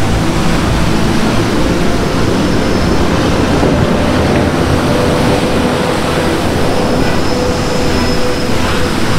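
Sea surf: waves breaking and washing up over a sandy beach, a steady, loud rush of water without pause.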